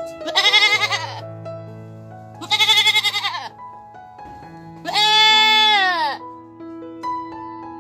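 Three loud bleats from a farm animal over soft piano music. The first two waver, and the third is a longer, steadier call that drops in pitch at its end.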